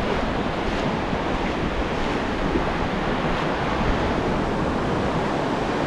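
Ocean surf washing onto a beach, a steady even rush, with wind buffeting the microphone.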